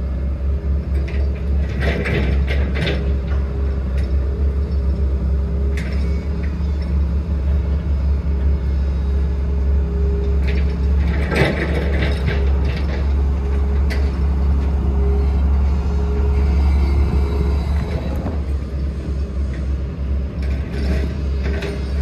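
Heavy earthmoving machinery running: a steady low diesel engine drone, broken by a few metallic clanks and rattles, the loudest about eleven seconds in.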